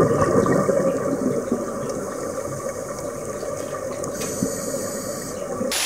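Muffled rushing water noise of an underwater recording, growing quieter over the first few seconds and cutting off abruptly near the end.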